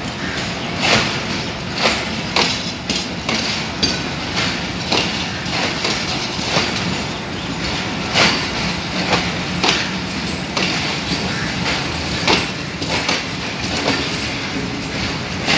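Empty passenger coaches rolling past on the track, their wheels clacking over rail joints over a steady rumble. The clacks come unevenly, about once or twice a second.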